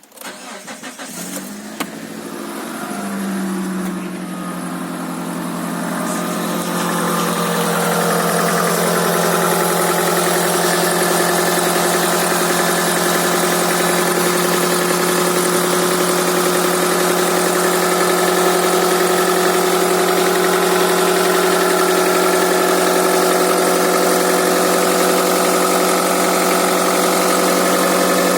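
Mitsubishi Grandis 2.4-litre four-cylinder engine starting from cold. It cranks for about two seconds, catches, revs briefly and settles into a steady idle, with the knocking the owner hears when the engine is cold.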